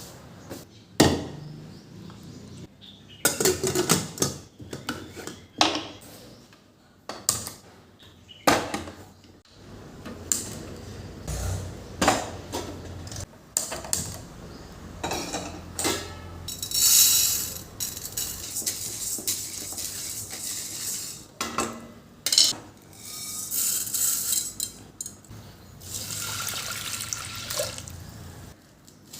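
Kitchen work: dishes, pots and cutlery clattering and knocking, with tap water running in several short spells.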